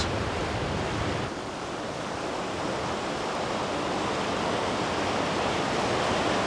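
The Kavango River in flood, rushing steadily over the rocky rapids of Popa Falls. The rush eases a little about a second in, then grows slightly louder toward the end.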